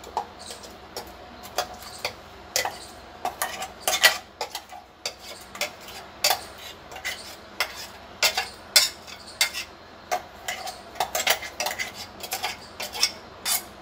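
A spoon scraping and knocking inside a stainless-steel mixer-grinder jar as thick chutney is emptied out. The sound is irregular metallic clicks and scrapes, some coming in quick clusters.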